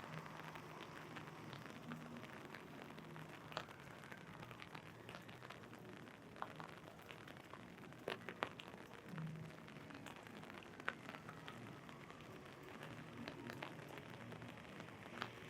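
Rain pattering steadily on an umbrella overhead, with scattered sharp taps of heavier drops, a few close together about eight seconds in.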